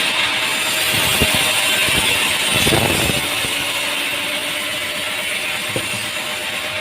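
Sawmill machinery running steadily, with a few knocks and clatters from handling the timber.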